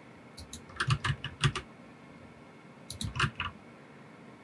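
Computer keyboard keys being tapped in three short flurries of clicks, with quiet pauses between them.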